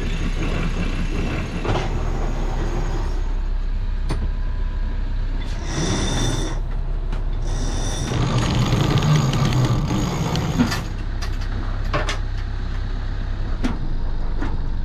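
A sailing yacht's cockpit sheet winch whining in two runs, the first short and the second several seconds long, over a steady rumble of wind and hull noise.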